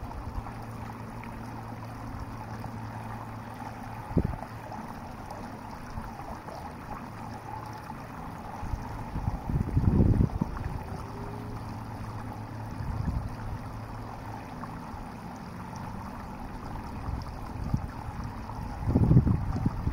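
Steady outdoor rush of shallow water in a concrete ditch, with wind buffeting the microphone in low gusts about halfway through and again near the end.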